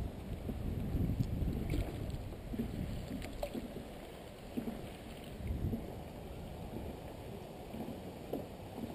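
Water lapping and splashing against the hull of a moving dragon boat, with wind rumbling on the microphone.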